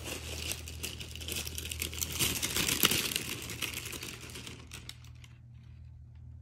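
Handling noise: a quick run of small, irregular clicks and rustles, busiest two to three seconds in, thinning out and dying away after about four seconds.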